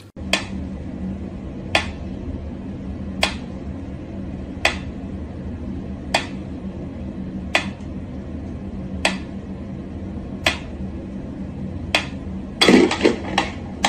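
Mechanical pendulum metronome ticking slowly and evenly, one sharp tick about every second and a half. Near the end, a short jumble of louder knocks and clatter breaks the beat.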